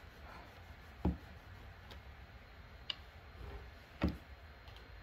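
Three light clicks or taps of a handheld coating thickness gauge's probe being set down on the car's painted body panel to take readings, the first, about a second in, the loudest with a dull knock.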